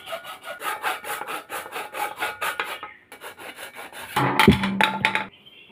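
Hacksaw cutting through a grey plastic part in quick back-and-forth strokes, several a second. About four seconds in the strokes become louder and harsher for about a second, then stop.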